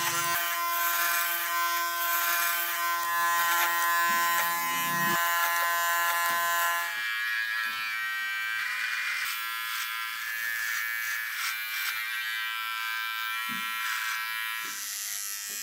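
Electric hair clippers buzzing steadily as they cut hair; about seven seconds in the hum changes to a different tone.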